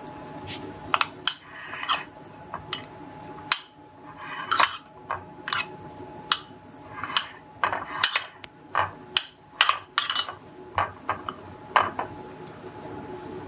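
Spoon stirring chickpea salad in a glass bowl, clinking and scraping against the glass in irregular strokes, about one or two a second.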